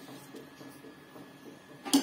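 Pot of rice boiling vigorously in water while a metal slotted spoon stirs through it, with a single sharp knock near the end.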